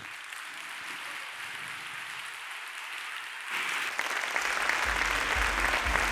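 An audience applauding at the end of a talk. The applause grows louder a little past halfway. Near the end, the bass of outro music comes in underneath it.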